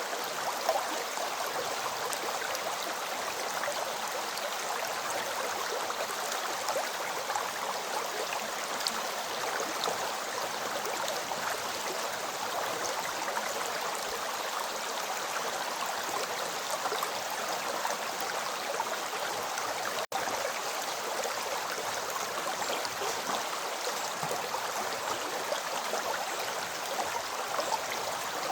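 River water flowing over stones in a steady, continuous rush, with small splashes flecked through it. The sound cuts out for an instant about twenty seconds in.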